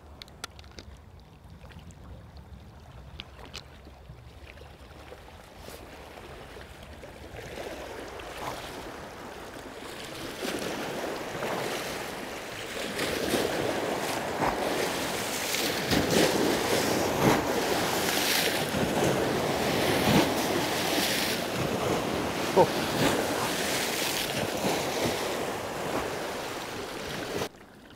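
Waves from a passing boat's wake washing and breaking against shoreline rocks. They build up from a low wash over the first several seconds into continuous splashing that dies down just before the end.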